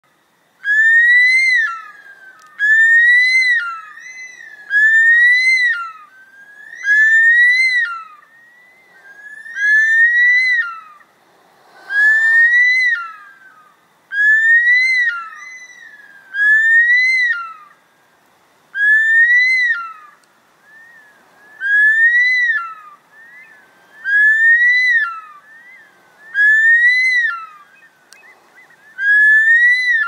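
Bush stone-curlew calling over and over, a loud whistled call about every two seconds, about fourteen in all. Each call rises and then breaks sharply downward, with fainter calls in between.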